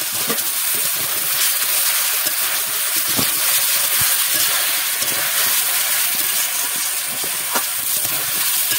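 Chopped vegetables sizzling and steaming in hot oil in an aluminium kadai, a steady hiss, with a few light scrapes of a metal spatula as they are stirred.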